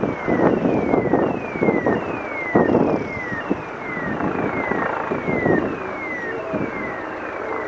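Car engine and wind rumble heard from inside a car moving slowly in traffic, in uneven gusts. Over it, a high electronic tone sweeps downward again and again, about three sweeps every two seconds, like an alarm sounding.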